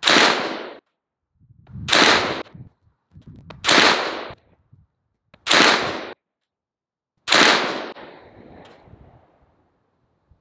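9mm AR-9 pistol with an 8.5-inch barrel firing five evenly paced shots of 147-grain Speer Gold Dot G2 subsonic ammunition, a little under two seconds apart. The last shot rings out longer.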